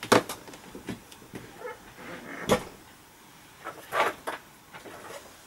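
Plastic marker caps clicking and marker barrels knocking on the desk as one alcohol marker is put down and the next picked up: a few short, sharp clicks, one right at the start, one about halfway and two close together near the end.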